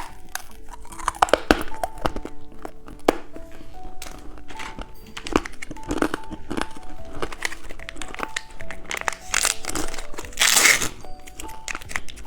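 Plastic candy wrapper crinkling and tearing as a caterpillar lollipop is unwrapped, with scattered rustles and a louder rustle near the end, over light background music.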